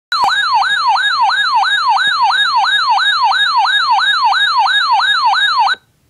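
Weather alert radio's built-in siren alarm going off for a flash flood watch: a loud warbling tone that sweeps up and down about two and a half times a second, then cuts off abruptly near the end.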